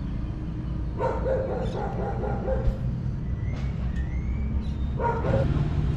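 Leashed dogs whining and yipping, with a few thin rising whines in the middle, over a steady low rumble.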